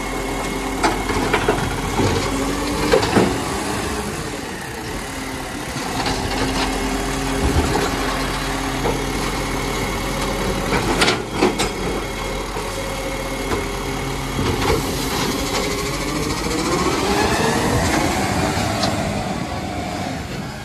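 Side-loader garbage truck running at the kerb while its hydraulic arm lifts and tips a wheelie bin, with clanks and a sharp bang about eleven seconds in as the bin is emptied. Near the end the engine rises in pitch as the truck pulls away.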